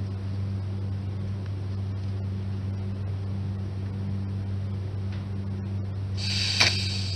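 Steady low electrical hum, then, about six seconds in, a brief hissing, crackling burst with one sharp crack: a welding arc struck to tack-weld the broken motorcycle muffler back together.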